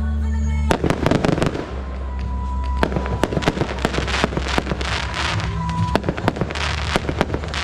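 Fireworks going off in quick succession, a dense run of sharp bangs and crackling from bursting shells, over music with steady deep bass notes.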